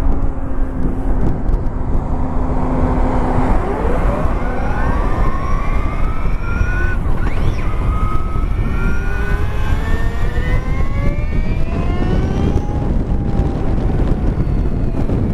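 Electric motorcycle motor and drive whine, the 2016 Victory Empulse TT's, climbing steadily in pitch as the bike pulls away and gathers speed, then easing off near the end. Heavy wind and road rush on the microphone runs underneath.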